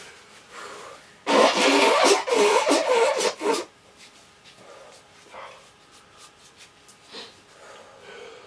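A man blowing his nose hard into a tissue, one loud rough blast of about two seconds, followed by faint sniffs and tissue rustles. His nose is running from the chilli-extract burn.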